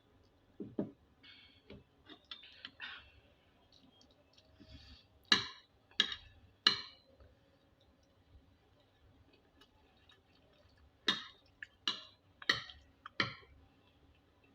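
Eating utensil clinking against a dish: three sharp clinks in quick succession, then after a pause four more, each a little over half a second apart, with a few softer scrapes and a dull knock in the first seconds.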